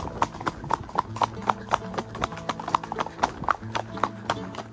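Horse hooves clip-clopping in a quick, even rhythm of about four to five strikes a second: a gaited horse moving at the marcha picada.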